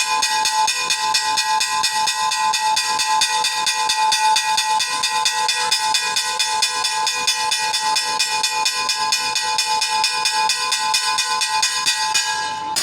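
Electric school bell ringing continuously: a fast, even clatter of the striker on the gong over a steady metallic ring. The striking stops right at the end, leaving the gong ringing on.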